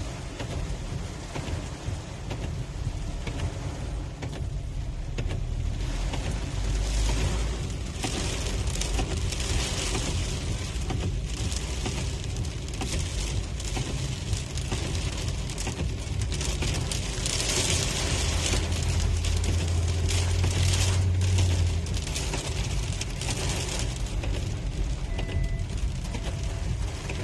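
Car interior while driving on a rain-soaked road: a steady low rumble of engine and tyres under the hiss of wet tarmac and rain on the car, with repeated swishes that come and go, as the windscreen wipers sweep. A deeper hum swells for a few seconds past the middle.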